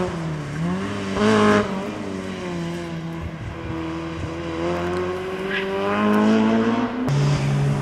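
Small hatchback rally car's engine working hard through a bend: a short loud burst of revs about a second in, then the note climbing as the car accelerates away. Near the end the sound cuts abruptly to the steadier engine note of another rally car.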